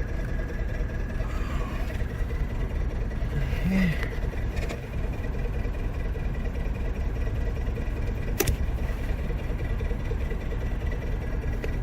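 1996 Toyota RAV4's four-cylinder engine idling steadily, running with a misfire on cylinder four (code P0304). There is a sharp click about eight seconds in.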